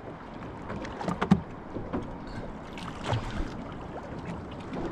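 Water lapping and slapping against a small boat's hull, with light wind, broken by a few brief knocks and clicks. The sharpest knock comes about a second in.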